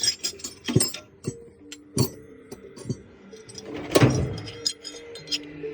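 Metal sockets and hand tools clinking and knocking as they are handled, with sharp knocks scattered through and the loudest one about four seconds in. Background music plays under it.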